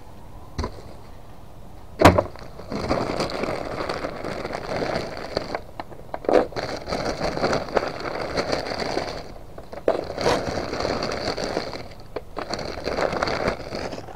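Plastic produce bags rustling and crinkling in the hands as leafy greens are pulled out of them, after a single sharp knock about two seconds in.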